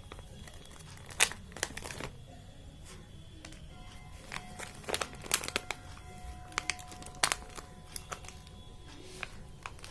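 Toy packaging crinkling and rustling, with scattered sharp clicks and taps as it is handled and opened. Faint background music with held tones sits underneath from a few seconds in.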